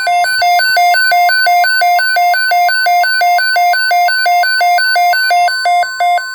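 Electronic hi-lo alert alarm, a low and a high beep alternating about three times a second, sounding for a tornado watch.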